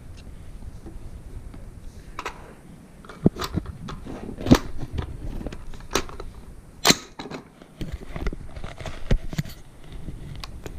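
Irregular sharp clicks and knocks of handling, a few louder taps among many faint ones.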